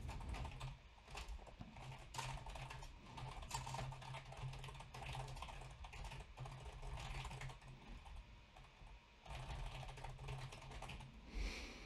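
Typing on a computer keyboard: a quiet, irregular run of key clicks, pausing briefly a little after eight seconds in.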